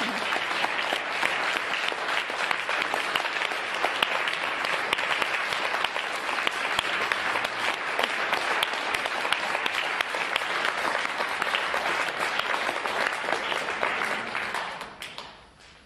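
Audience applauding in a large hall: dense, sustained clapping that dies away near the end.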